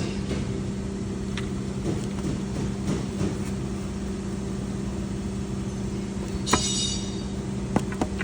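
A steady mechanical hum, with a few sharp clicks and knocks and a brief brighter clatter about six and a half seconds in.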